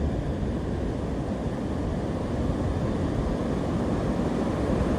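Ocean waves breaking on a beach with wind buffeting the microphone: a steady low rumble of surf and wind.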